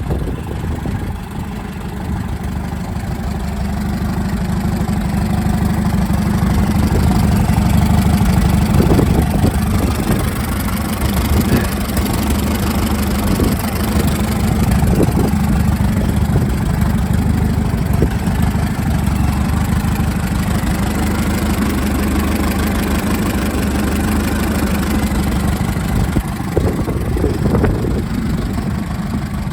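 Bristol 20 crawler bulldozer's engine running steadily, growing louder over the first several seconds and then holding, with a few short knocks and clanks scattered through.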